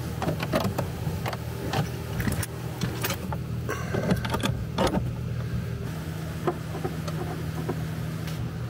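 Metal clicks and clinks of a wrench working the bolts that hold an aircraft pilot seat to its floor rail, many in the first five seconds and fewer after, over a steady low hum.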